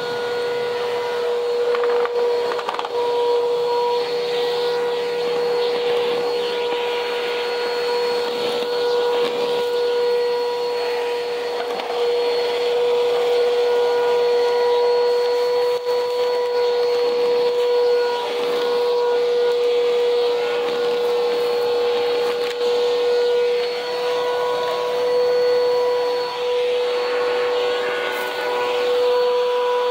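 Vacuum cleaner running steadily on a cement floor, its motor holding one high whine, with a crackling rattle of debris being sucked up and rising and falling as it passes.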